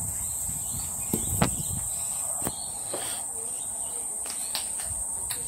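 A steady, high-pitched insect chorus droning without a break. Two dull thumps come about a second and a half in, and a few short sharp clicks follow later.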